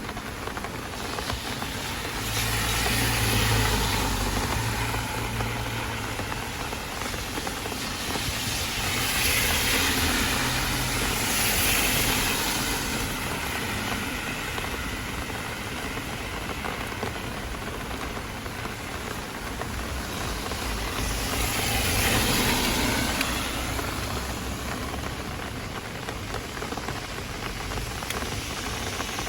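Steady heavy rain, with motor vehicles passing on the wet road: three slow swells of engine rumble and tyre hiss that rise and fade over several seconds each.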